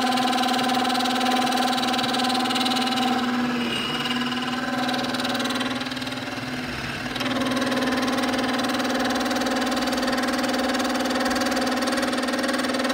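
Benchtop micro mill's spindle running and milling a dovetail in a metal block, a steady machine whine with a constant tone. The pitch pattern shifts and the sound drops a little from about four to seven seconds in, then the steady cutting sound returns.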